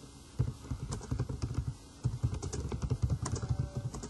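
Typing on a computer keyboard in quick runs of keystrokes: a short run in the first second, a pause, then a longer run from about two seconds in.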